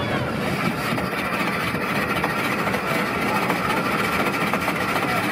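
Ice shaver machine running steadily, shaving a block of ice into snow for a snow cone.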